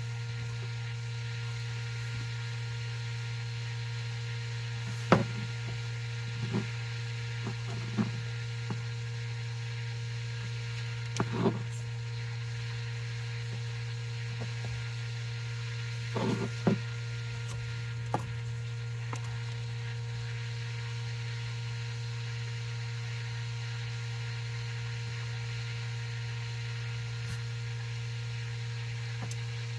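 A steady low hum with a few short, light clicks and knocks scattered through the first two-thirds, from curtain-track parts being handled and pressed into the groove of an SUV's back window.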